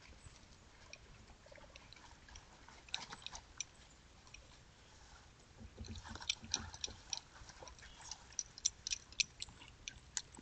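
Feet and paws crunching through dry fallen leaves: a scatter of faint crackles that grows busier about six seconds in as a dog comes close.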